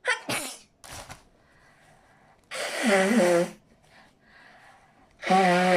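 A woman's loud bursts of breath through the nose and mouth: two short rushes in the first second, then two loud blasts with voice in them, each about a second long, one near the middle and one near the end.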